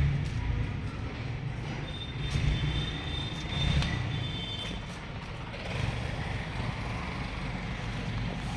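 Compressor running with a steady low mechanical drone. Faint high thin tones sound over it between about two and five seconds in.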